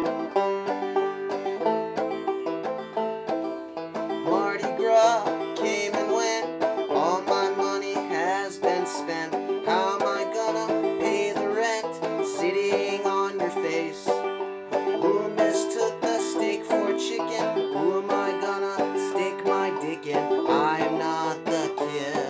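Five-string banjo played clawhammer style: a steady, rhythmic run of plucked melody notes and brushed strums, with some notes slid in pitch.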